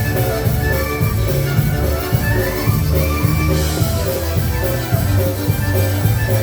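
Live polka band playing a tune, with a steady bass line and an even, driving beat under the melody.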